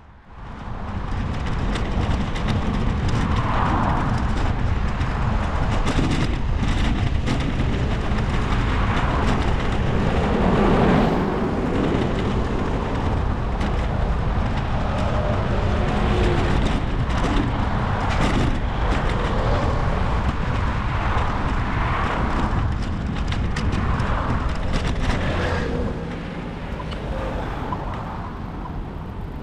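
Motor traffic passing on a nearby road, several vehicles swelling up and fading, over a steady low rumble; it eases off near the end.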